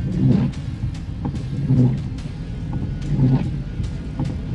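Car driving on a wet road, heard from inside the cabin: low engine and tyre noise, with a low swell about every one and a half seconds as the windscreen wipers sweep.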